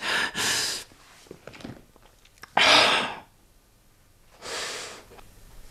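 A distressed woman breathing hard: three loud, shaky breaths, the loudest about two and a half seconds in, with small faint clicks between them.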